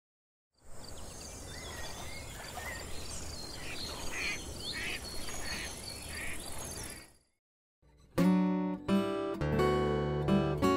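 Outdoor ambience of birds chirping and calling over a steady hiss, which cuts off after about seven seconds. Acoustic guitar music then starts near the end.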